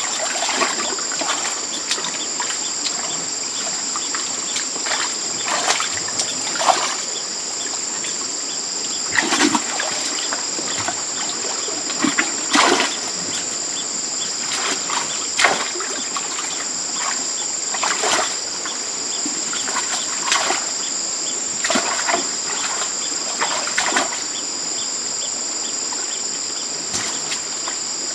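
Splashing as hands grope through shallow muddy water for fish, in short irregular splashes every second or few, over a steady high-pitched insect chorus.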